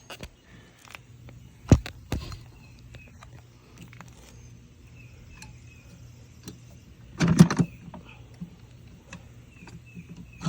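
Plastic-and-metal handle of an electric pressure washer being fitted and locked in place: two sharp clicks about two seconds in, scattered small knocks, and a burst of clattering about seven seconds in.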